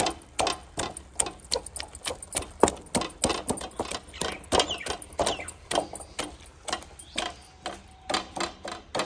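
Wooden masher pressing and knocking boiled garlic cloves against the bottom of a non-stick wok to mash them, a steady run of soft knocks about three to four a second.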